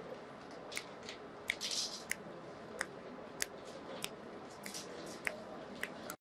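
Wrapping paper crinkling and snapping as a new book is unwrapped for its release: about ten sharp clicks scattered through, with one longer crinkly rustle about two seconds in.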